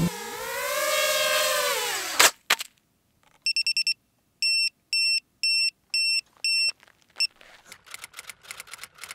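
FPV quadcopter's brushless motors whining, pitch rising and falling, cutting off sharply about two seconds in. Then the quad's beeper sounds four quick beeps and about six evenly spaced beeps, roughly two a second. Near the end come quick typewriter-style clicks.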